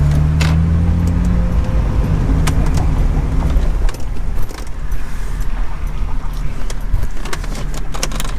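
BMW E46 330ci's straight-six engine running, heard from inside the cabin as the car pulls over, easing off after about four seconds, with scattered light clicks and rattles in the cabin.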